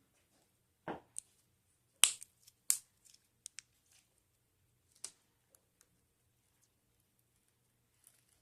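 Slime being squeezed and poked, giving a handful of sharp pops and clicks at uneven intervals with pauses between, the loudest about two seconds in.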